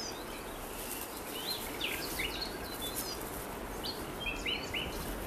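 Small birds giving scattered short, high chirps over a steady background hiss of forest ambience.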